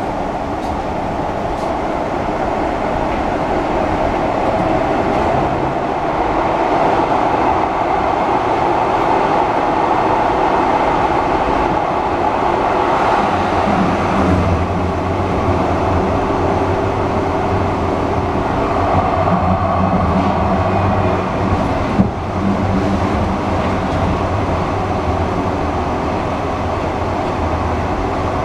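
Running noise inside a 1977 Siemens-Duewag U2 light-rail car under way: a steady rumble of wheels on rail. About halfway through, a low hum joins in as an oncoming train passes alongside, and a single sharp knock comes a little past two-thirds through.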